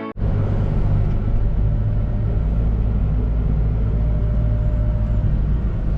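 Vehicle engine running steadily at a constant speed, a loud low rumble that does not change.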